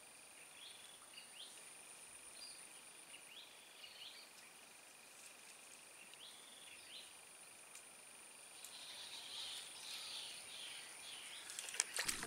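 Faint insect chorus from a swampy pool: a steady high-pitched whine over a lower steady trill, with short rising chirps every second or so. The chirping grows busier in the last few seconds, and a few sharp clicks come right at the end.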